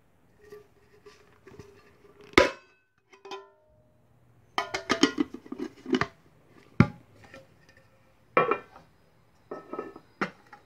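A tin-plate can and its press-fit metal lid handled by hand: a string of sharp metallic clicks, knocks and clatter, a few ringing briefly, the sharpest about two and a half and seven seconds in.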